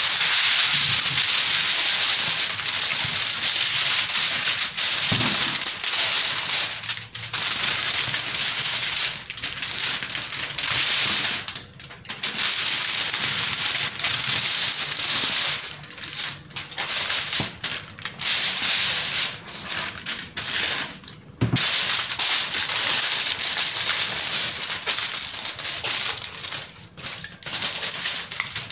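Heavy-duty aluminium foil crinkling and rustling loudly as a sheet is unrolled, spread and smoothed by hand, with a few short pauses in the handling.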